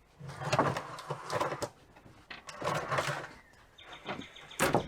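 Rough-sawn wooden siding boards being slid and stacked: two long scraping stretches of wood on wood, then a sharp knock near the end as a board is set down.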